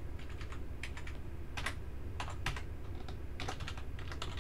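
Typing on a computer keyboard: irregular key clicks, a few a second, over a low steady hum.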